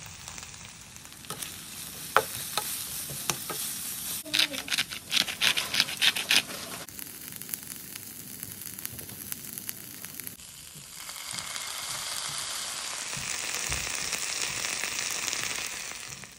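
Edamame pods sizzling in a nonstick skillet with chili sauce while a spatula stirs them. The spatula knocks and scrapes against the pan: a few scattered strikes, then a quick run of strokes a few seconds in. About two-thirds of the way through, the sizzle grows louder and steadier.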